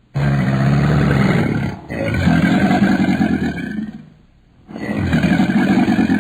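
Big cat roaring: a long roar with a brief break about two seconds in, a pause about four seconds in, then another roar.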